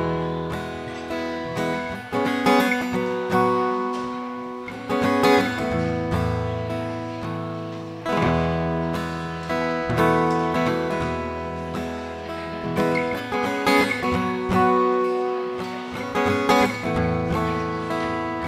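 Solo acoustic guitar playing without vocals: chords struck every couple of seconds and left to ring, fading between strokes, with some single picked notes in between.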